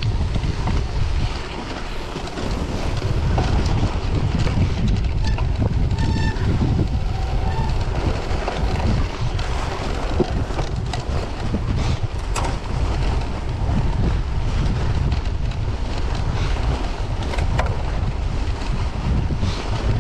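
Wind rumbling on the microphone while riding a cyclocross bike over packed snow and ice, with the hiss of tyres on the snow and a few sharp clicks.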